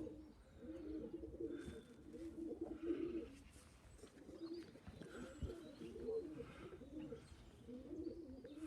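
Domestic pigeons cooing at the loft: repeated low, warbling coos, several birds overlapping, with no break.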